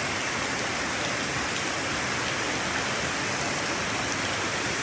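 Heavy tropical downpour: a steady, even hiss of rain falling, with no break or change.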